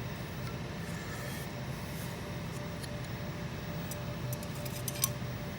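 Small metal parts and tools clicking and tapping as they are handled, a cluster of light clicks near the end, the sharpest about five seconds in, over a steady low machine hum.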